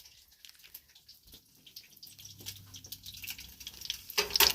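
Tempura chicken pieces frying in hot oil in a skillet: a scatter of small crackles and pops that grow busier about halfway through, with a louder burst of sizzle near the end.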